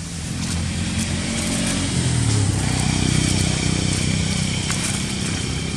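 A motorcycle engine running, growing louder over the first two seconds or so and then easing off a little.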